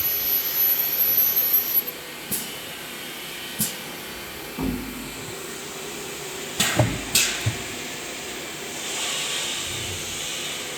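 CNC router's automatic tool changer moving to the tool holder and swapping tools: a high thin whine stops about two seconds in, then sharp clicks and clunks come about 2, 3.5, 4.5 and 7 seconds in, over a steady hiss of the running machine.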